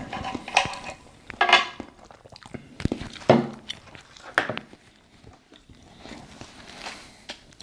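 Close-up chewing and mouth sounds of a person eating, with a few separate louder smacks spread unevenly through.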